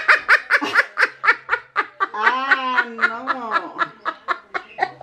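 An elderly woman laughing hard, in quick breathy bursts of several a second, with a longer wavering laugh in the middle.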